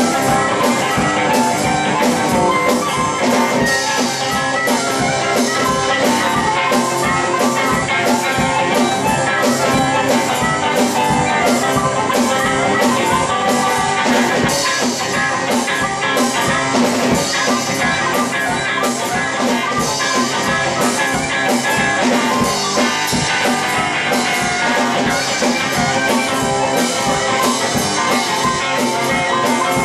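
Blues harmonica played cupped to a hand-held microphone, taking an instrumental passage over guitar and drums with a steady fast beat.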